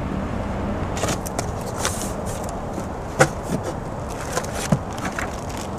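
Cardboard box flaps and plastic-bagged parts being handled as the box is unpacked: scattered crinkles, rustles and sharp clicks, heard over a steady low background hum.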